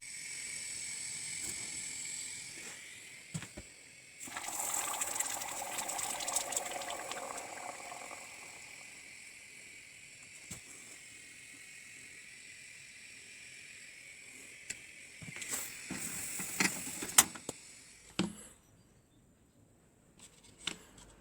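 Mechanical handling noises: scattered clicks and rattling over a steady hiss. There is a louder rattling stretch a few seconds in and a quick cluster of sharp clicks near the end.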